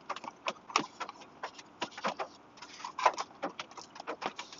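Close-up eating sounds: a man chewing a spoonful of stew, with irregular short wet mouth clicks and smacks, several a second.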